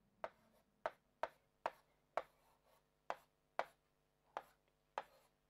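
Marker pen writing on a whiteboard: a string of faint, short taps and scrapes, about two a second, one for each stroke of the letters.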